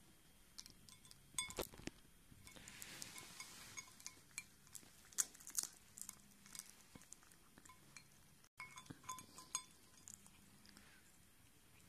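A cat eating from its dish: faint, scattered clinks and knocks against the bowl, some with a short ring, interspersed with quiet crunching.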